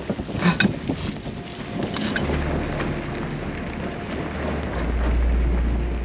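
Wind buffeting the microphone aboard a sailboat under way: a low rumble that grows heavier from about two seconds in and is strongest near the end. There are a few sharp knocks about half a second in, and a faint steady hum under the wind.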